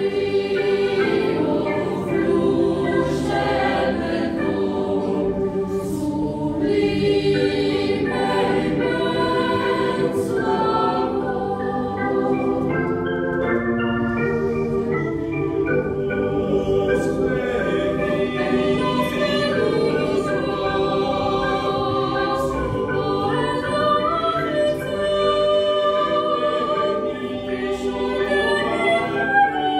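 Mixed choir of women's and men's voices singing a sustained, slow-moving song in parts, accompanied by a digital piano.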